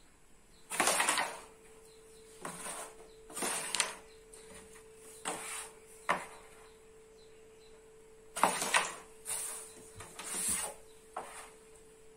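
Carrom striker and wooden carrom coins on a powdered board: a series of sharp clacks and short sliding swishes as the striker is flicked and hits and scatters coins, about eight in all, the loudest about a second in. A faint steady hum runs underneath from about a second in.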